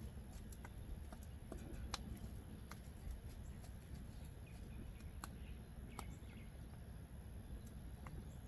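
Oak wood fire crackling in the open firebox of an offset barrel smoker: scattered sharp pops and snaps, a few louder ones, over a low steady rumble.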